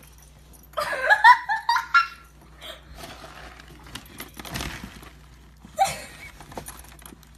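A person laughing in a burst about a second in and again briefly near the end, with faint rustling and knocking of the dog rummaging in the plastic bin bag inside the trash can between the laughs.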